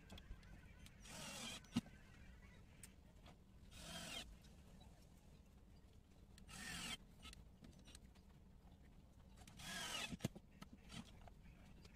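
Cordless drill driving screws into aluminium edge trim: four short bursts of the motor, each about half a second and a few seconds apart, with a sharp click after the first and the last.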